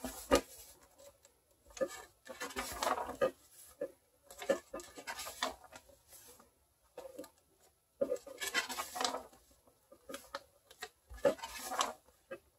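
Paper pages of a large picture book being turned and pressed flat by hand: rustling paper and hands rubbing over the pages in several short bursts with quiet gaps between.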